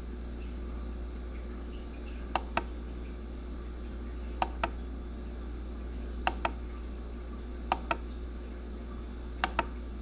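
Buttons on a trail camera clicked to step through its pictures: five quick double clicks, press and release, about every two seconds, over a steady low hum.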